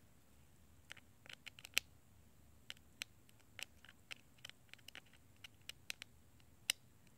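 Precision screwdriver turning tiny screws out of an iPhone 6's internal metal bracket: a run of light, irregular metal clicks and ticks, the sharpest about two seconds in and near the end.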